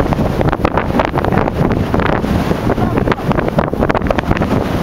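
Strong wind buffeting the microphone: a loud, gusty rumble with irregular blasts throughout.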